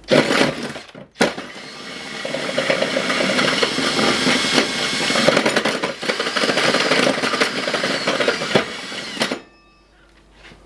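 Cordless drill driving a hole saw through the steel body panel of the inner guard. A short burst of cutting, a brief stop, then about eight seconds of steady grinding cut that ends abruptly near the end.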